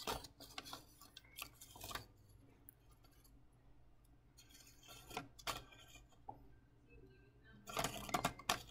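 Paper receipts being sliced with a carbon steel gyuto kitchen knife: crisp paper cutting and rustling strokes in three bouts, in the first two seconds, about five seconds in, and loudest near the end.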